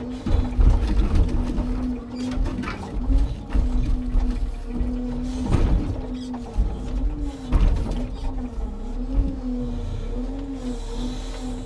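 Hydraulic timber crane at work loading birch logs: a steady pump whine that rises briefly again and again as the crane is worked, with several loud clunks and creaks from the crane and logs.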